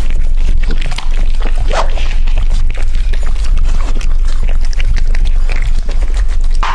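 Dogs eating from plates: wet chewing, licking and smacking in quick, irregular clicks, over a steady low hum.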